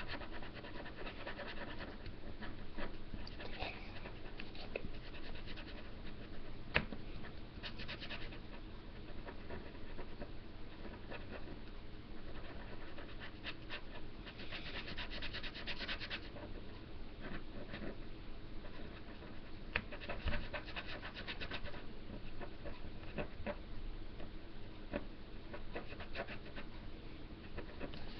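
Marker tip scribbling back and forth on paper while colouring in, a faint rapid scratching that comes and goes in short spells.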